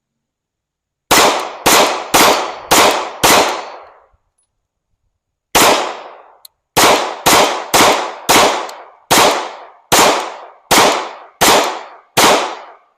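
CZ P-09 Nocturne pistol firing fifteen shots: five in quick succession about a second in, a pause of about two seconds, then ten more at a steady pace, each with a short ringing tail.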